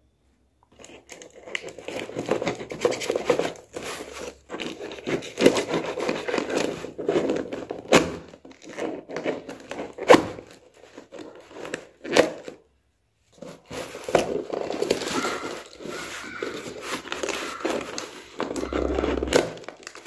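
A cardboard parcel being torn open: packing tape and plastic wrapping cut with a knife and ripped and peeled off, with crinkling, scraping and a few sharp knocks.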